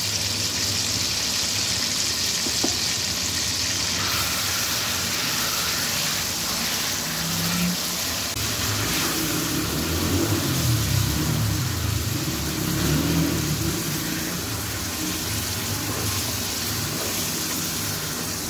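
Raw minced mutton sizzling steadily in hot oil in a steel kadai while a wooden spoon stirs it, with a low rumble underneath.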